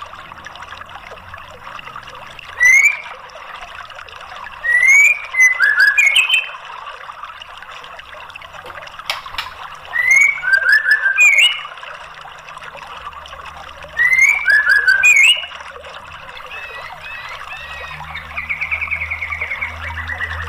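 White-rumped shama singing: four loud bursts of song a few seconds apart, each of fast high chattering notes and slurred whistles, then a rapid buzzy trill near the end. A steady hiss lies under it throughout.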